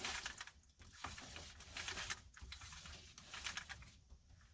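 A car's seatbelt retractor worked by hand, freshly lubricated with PB Blaster: small irregular clicks and rustling of the mechanism and webbing, dying away near the end.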